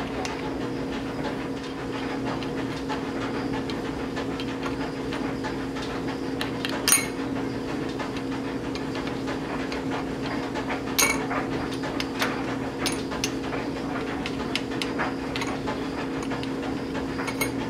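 Occasional small metallic clicks and clinks as a screwdriver nudges the variable-geometry vanes of a 6.0L Powerstroke turbo's turbine housing back into line, over a steady hum.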